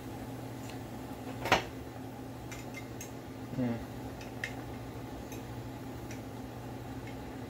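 Plastic hand-held lemon squeezer clacking over a cooking pot: one sharp click about a second and a half in, a short low sound a couple of seconds later, and a few light ticks, over a steady low hum.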